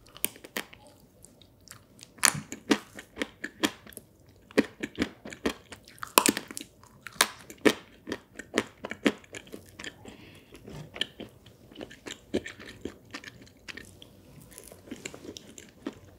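Close-miked mouth sounds of someone chewing a soft chocolate-and-cream cake, with sharp crunches and clicks from its hard star-candy sprinkles. The crunching is densest and loudest in the first half and grows softer after about ten seconds.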